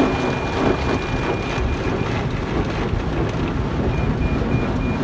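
Car-wash water spraying and pounding over the car, heard from inside the cabin. Over it the Lexus Park Assist parking-sensor chime sounds, a steady tone for about the first two seconds, then quick repeated beeps from about three and a half seconds in. The sensors are being set off by the car-wash spray and equipment.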